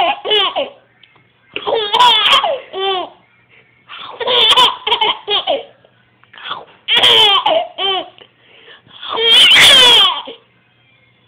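Baby laughing in repeated high-pitched bouts a couple of seconds apart, about five in all. The longest and loudest comes near the end.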